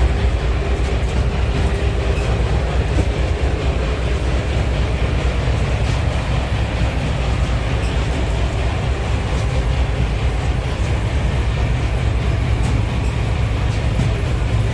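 Motorboat engine running steadily with a loud low rumble, mixed with rushing water and wind noise as the boat travels.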